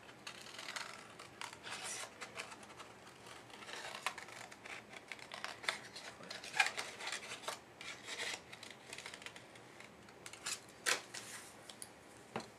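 Scissors cutting a sheet of patterned craft paper: a run of uneven snips that stops near the end.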